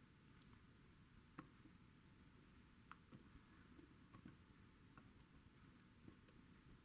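Faint, sparse clicks of a pick turning the discs inside a Reliabilt disc-detainer lock, with two clearer clicks about a second and a half apart early on and softer ticks after them, in a near-silent room.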